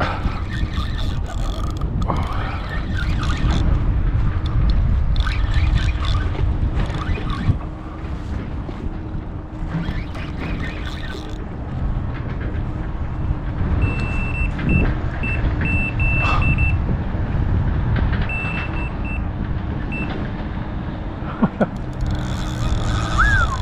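Electronic carp-fishing bite alarm beeping in irregular runs of short high beeps, the sign of a fish pulling line off a rod. A steady low rumble runs underneath.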